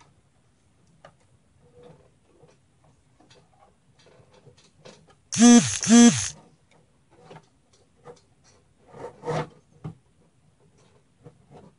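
Small clicks and rustles of computer parts and cables being handled inside a PC case. A little over halfway through come two loud, short cries about half a second apart, each rising and falling in pitch. A brief clatter follows a few seconds later.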